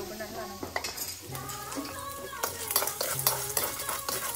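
A metal spoon scraping and stirring food as it fries and sizzles in a steel wok over a wood fire, with repeated scrapes against the pan.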